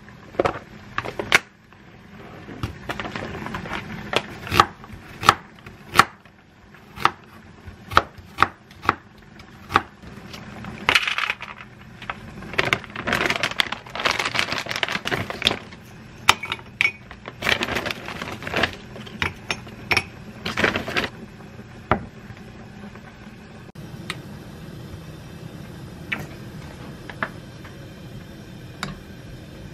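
Kitchen food-prep handling sounds: a plastic food container opened and frozen vegetables handled, giving a quick run of sharp clicks and knocks with rustling between them. It settles to a low steady background for the last several seconds.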